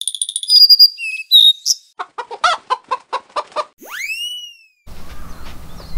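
Sound effects for an animated title card: a few high electronic chirps, then a quick run of chicken clucks, then a whistle-like swoop that rises and falls. Faint outdoor background sound comes in about five seconds in.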